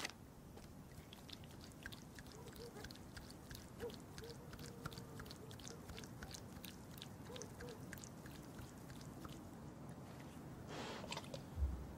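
Dog's paws crunching and ticking on railway-track gravel as it walks and sniffs along the rails, with a low thump near the end.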